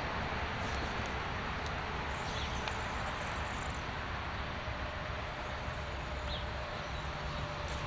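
Outdoor ambience: a steady wind-like hiss with a few faint bird chirps and a faint, steady whine that sets in about five seconds in.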